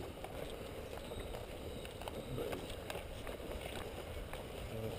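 Footsteps through long grass with rustling and scattered faint knocks from carried gear.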